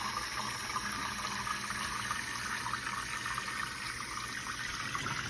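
Water running in a steady, even trickle.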